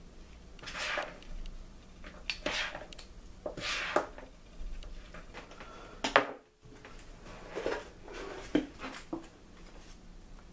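Macaroni salad being stirred in a large bowl: a series of short scraping, squishing strokes of pasta against the bowl, roughly a second apart, with a brief break about six seconds in.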